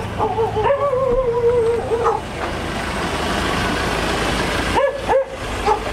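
Dogs calling over a steady rumbling background noise. There is a long wavering howl in the first two seconds, then two short yelps about five seconds in.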